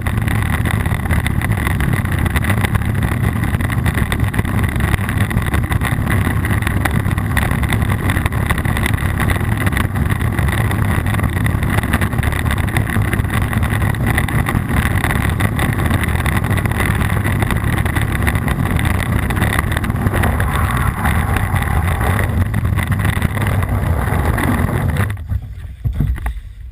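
Loud steady rumble of wind and trail noise picked up by a low-mounted GoPro on a downhill mountain bike ridden at speed. It falls away sharply near the end.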